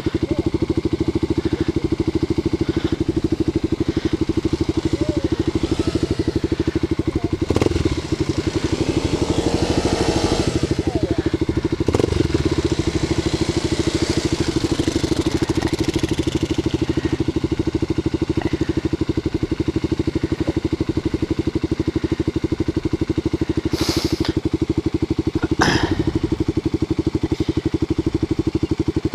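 Single-cylinder dual-sport motorcycle engine idling steadily while the bike stands still, with a few sharp knocks and a brief wavering engine note about ten seconds in.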